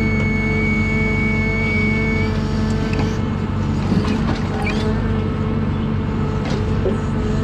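John Deere 1010G forwarder's diesel engine running steadily. A high steady whine cuts off about two seconds in, and a few short knocks come in the middle and near the end.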